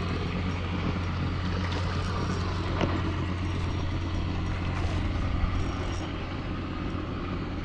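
A steady low hum, like a motor running, over a rushing background noise.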